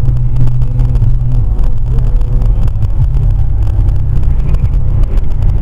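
Car engine and road noise: a loud, steady low rumble.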